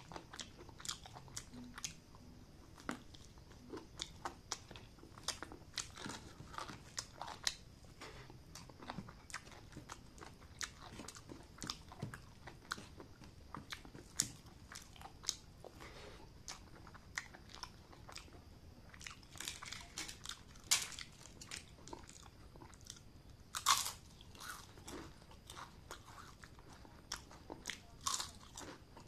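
Close-up eating sounds of a person eating chicken, rice and egg by hand: steady chewing and wet mouth clicks, with sharp crunches of fried crisps, louder in the second half.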